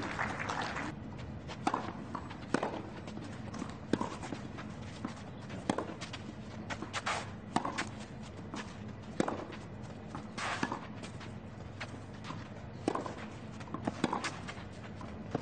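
Tennis rally on a clay court: sharp pops of the ball struck by rackets and bouncing, spaced a second or two apart, with players' footsteps between them. Crowd applause dies away in the first second.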